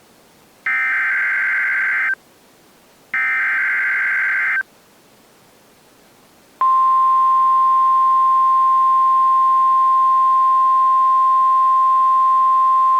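Emergency Alert System SAME header: two bursts of warbling digital data tones, each about a second and a half long with a one-second gap between them. About six and a half seconds in, a long, steady, loud EAS attention tone starts and holds.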